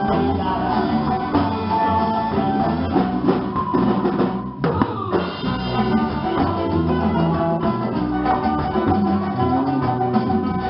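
Live band playing an Afro-Latin-inspired folk song: strummed acoustic guitar and charango over congas, drum kit and bass, with a short break about four and a half seconds in.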